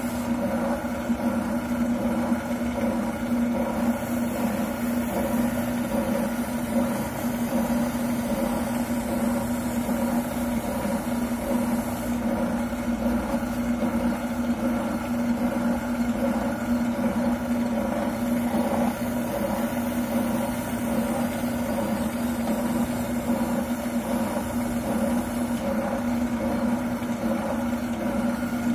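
Wilton oscillating sander running steadily with a strong, even hum while a shotgun buttplate is ground down against it to fit the stock.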